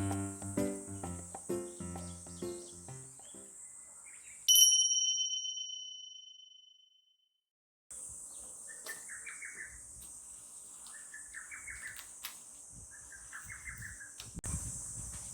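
Background music ends and a single bright chime rings out and fades. After a brief dead silence comes outdoor ambience: a steady high insect buzz with a bird giving short chirping calls about every two seconds.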